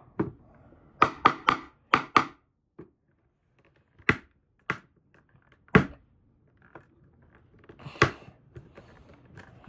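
Sharp, irregular clacks and knocks of a screwdriver working at stubborn screws in a hard plastic power strip housing, with a quick cluster of five early and scattered single knocks after.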